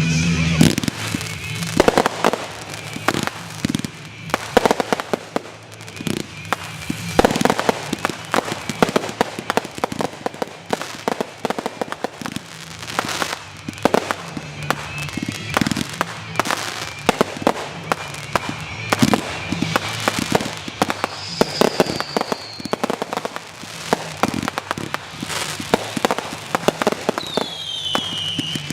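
Fireworks display: a rapid, irregular run of bangs and crackling. Twice near the end a shell gives a high whistle that falls in pitch.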